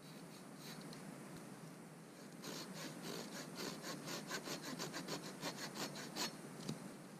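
Small hand saw cutting through a thin wooden pole: a quick run of back-and-forth strokes, about four or five a second, starting a couple of seconds in and stopping a second before the end.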